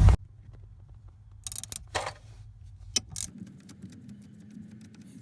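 Faint metallic clicks and taps from hand tools working on bolts, with sharper clicks about one and a half, two and three seconds in, then a run of light ticks.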